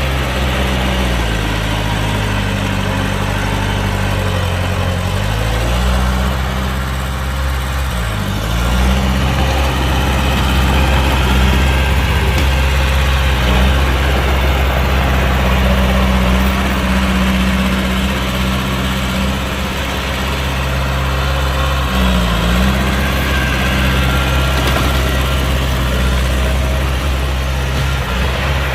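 Heavy diesel engines of earthmoving machinery running steadily, with the engine speed dipping briefly and recovering a few times.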